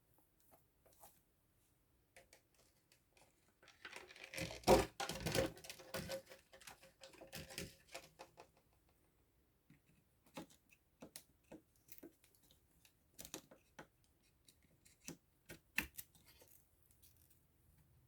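DDR4 RAM sticks being pushed into a motherboard's memory slots, faint clicking and rattling as the slot latches snap shut. A cluster of clicks comes about four to eight seconds in, the loudest a sharp click about five seconds in, followed by scattered light clicks.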